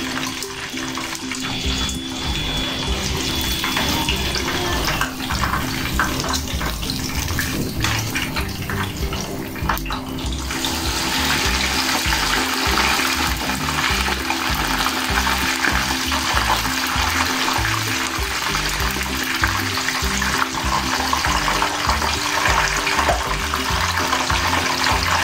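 Pork belly deep-frying in hot oil, a steady crackling sizzle that grows denser about ten seconds in after the pieces are turned. This is the second fry that crisps the skin. Background music plays underneath.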